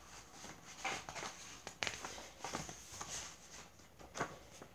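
Faint, scattered rustles and soft clicks of paper being handled: pages of a book being leafed through.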